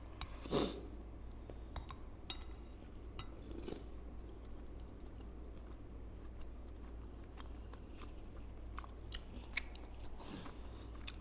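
Close-up chewing of bakso meatballs with crunchy bone bits. It is quiet mouth noise with scattered small crunches and clicks.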